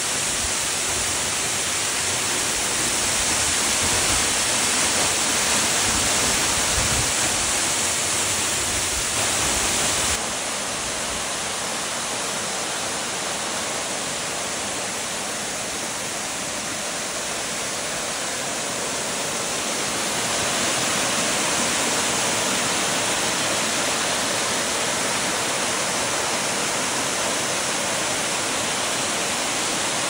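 Waterfall pouring down a rock face: a steady rush of falling water, changing slightly in level about ten and twenty seconds in.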